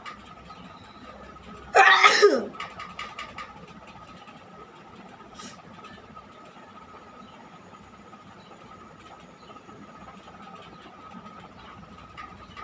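A person sneezing once, loudly, about two seconds in, the pitch falling through the sneeze; a faint steady hum underneath.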